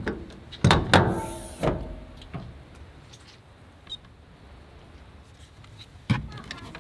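SmartCap truck canopy side door unlatching and opening: a few clunks with a metallic ring in the first two seconds. A short high beep comes near four seconds as the battery-monitor screen is tapped, and another clunk near six seconds as a cable is plugged in.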